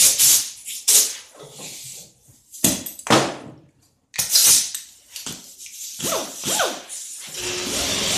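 Close handling noises: a series of brief rustles, scuffs and knocks as a person moves about and picks up tools, with a few short squeaks a little before the end. Near the end a steady hum with a wavering tone starts.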